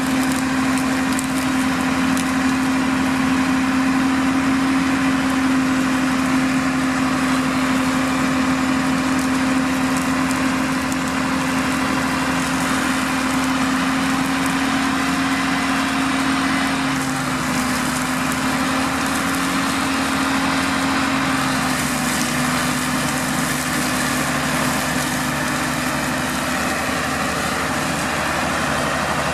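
New Holland TM140 tractor's diesel engine running steadily at working revs while powering a Shelbourne hedge cutter, a steady hum with faint ticking over it. The pitch drops a little about halfway through.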